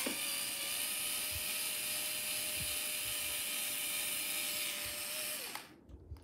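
Cordless electric screwdriver whirring at a steady speed as it backs a Phillips screw out of a guitar amplifier cabinet, then winding down and stopping about five and a half seconds in.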